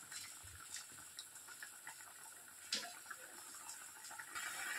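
Thin curry bubbling faintly as it simmers uncovered in a nonstick pan, with a few light clicks and one sharper tap about two and a half seconds in.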